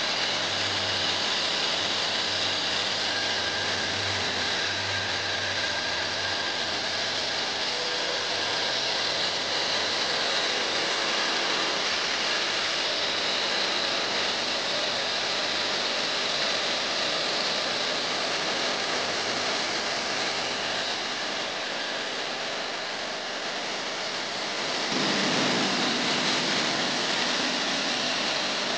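Portable line boring machine running steadily, its boring bar cutting out the welded-up pivot bore of a John Deere front axle. It makes an even whirring hiss that grows louder and fuller near the end.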